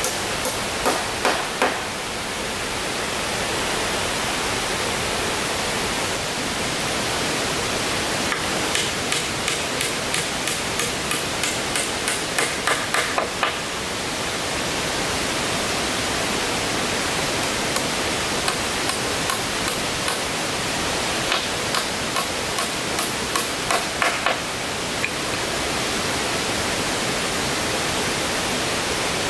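Repeated sharp blows of a tool striking wood, in three bouts of about two to three blows a second, the middle and last bouts longest, over a steady background hiss.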